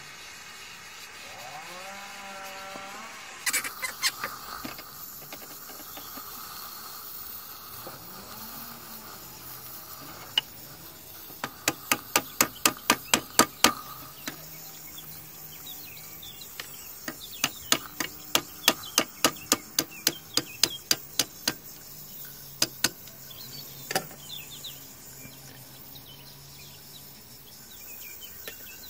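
Small gas soldering torch burning with a steady hiss while it heats a copper pipe for tin soldering. Over it come runs of sharp clicks, about four a second, around the middle.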